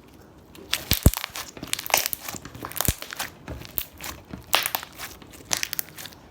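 Metallic slime being squished and stretched by hand, giving a dense run of sharp pops and crackles that starts about a second in.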